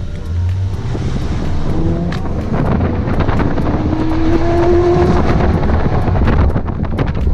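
A car engine revving hard under load. Its pitch climbs steadily from about two seconds in and falls away near the end, over a constant loud rushing noise.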